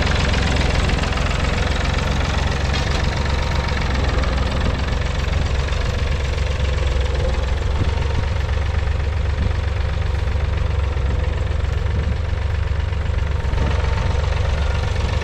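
Three-cylinder diesel engine of a 1969 David Brown 780 tractor running steadily at a low, even pitch.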